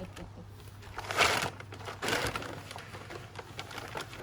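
Rustling and rattling as bird seed and its packaging are handled. There are two louder rustles, about a second and two seconds in, with scattered small clicks between them.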